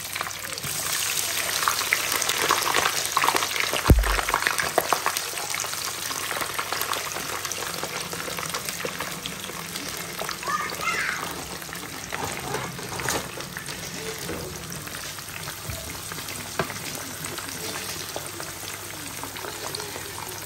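Thin potato slices frying in hot oil in a frying pan: a steady sizzle with many small crackling pops, loudest over the first few seconds. There is a single dull thump about four seconds in.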